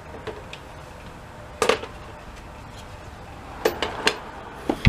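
Scattered clicks and knocks of a screwdriver and hands on plastic cowl trim while a Phillips-head screw is taken out, the loudest knock about a second and a half in and a few more near the end.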